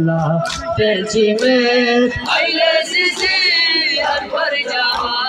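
Crowd of men chanting a nauha, a mourning lament, in unison, with a lead voice rising high and wavering in the middle. Through it run repeated sharp slaps, about two a second, from hands beating on chests in matam.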